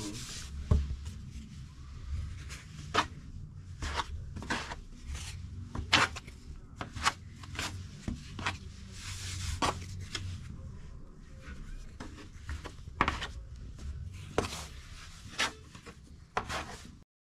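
Hands working risen pide bread dough on a work surface: rubbing and pressing sounds with scattered sharp knocks and taps, cutting off suddenly near the end.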